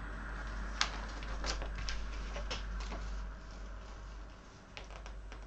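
A plastic-coated sticker sheet crackling and crinkling as it is handled and flexed, in a few short sharp crackles, the loudest about a second in, over a low steady hum.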